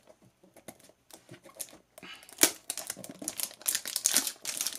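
Clear plastic wrap on a small cardboard blind box crinkling as it is handled in the fingers. The crinkling is faint ticks at first and becomes a dense run of crackles from about two seconds in.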